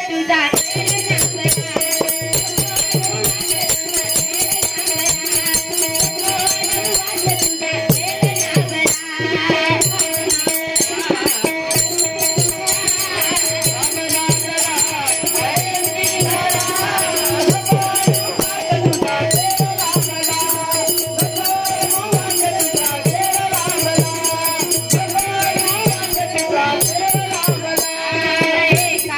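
Marathi bhajan music: voices singing a melody over a steady beat of tabla and a barrel drum, with small hand cymbals (taal) ringing and jingling throughout.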